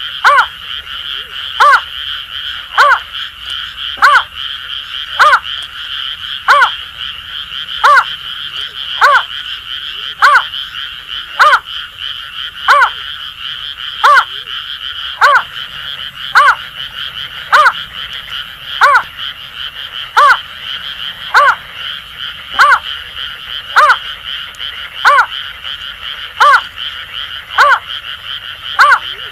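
Greater painted-snipe repeating a call note in a steady series a little over a second apart, over a continuous chorus of croaking Asian grass frogs.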